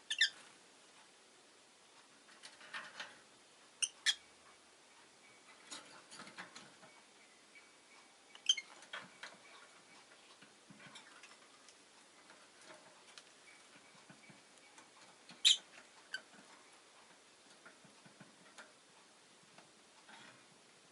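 Rosy-faced lovebird giving a few short, sharp chirps spaced several seconds apart, with soft clicks between them.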